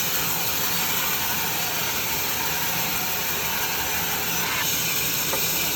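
Sawyer HB-700B vertical band saw running and cutting wood, with the stock driven through by its power feeder; a steady sawing noise that brightens just as it starts and changes tone a little over four seconds in.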